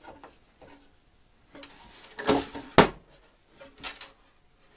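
Wooden box lid moved on its freshly mounted hinges: a short rubbing noise builds to one sharp wooden knock a little under three seconds in, followed by a lighter click, with a few faint small clicks of the screwdriver at the start.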